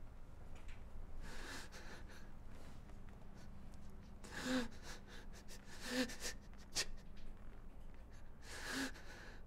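A man breathing heavily and unevenly, with three short voiced gasps about four and a half, six and nine seconds in.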